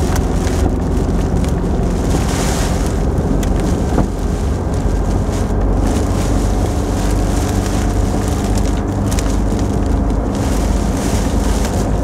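Steady road and engine noise inside a moving car, with a rumble at the low end and a hiss above it that rises and falls. A few light ticks come near the middle, from rain hitting the windshield.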